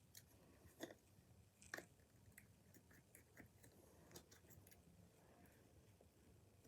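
Near silence with a few faint, sharp clicks and taps of small plastic parts being handled, as the stripped mechanism of a Nerf Double Strike blaster is worked by hand; the two loudest come just under a second in and near two seconds.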